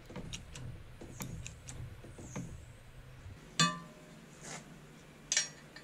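Steel plate knocking against the metal frame of a hydraulic sheet-metal folder, two sharp clinks a little under two seconds apart, each ringing briefly, as a freshly bent 4 mm plate is handled and lifted out. Light taps and clicks come before them.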